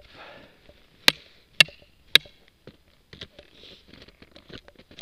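Three sharp, hard knocks about half a second apart, followed by a run of softer clicks and crunches as a skier's gear is handled while he stands in the snow.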